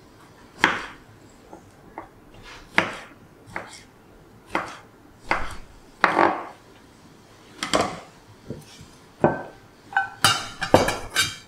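Chef's knife slicing a tomato on a wooden cutting board: a series of single knocks on the board, about one every second or so. Near the end, a quick clatter with a metallic ring as the slices go into a stainless steel bowl.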